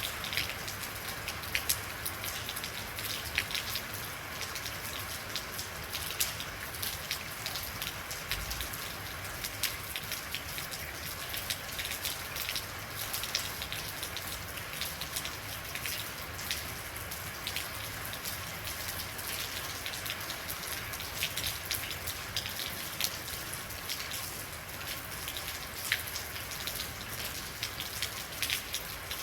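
Steady rain falling, with many individual drops pattering and ticking on a hard surface.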